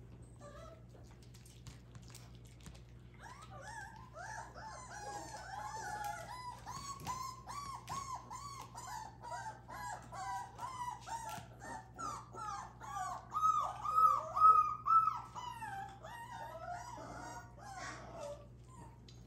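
Seven-week-old Cardigan Welsh Corgi puppy whining and yelping in a long run of short, high cries, starting a few seconds in and loudest about two-thirds of the way through: a scared puppy protesting at being held on the grooming table.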